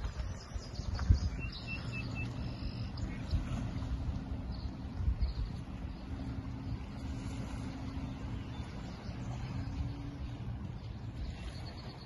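Wind buffeting the microphone over small waves lapping on a rocky lakeshore, with a faint steady low hum underneath. A few short bird chirps come in the first three seconds.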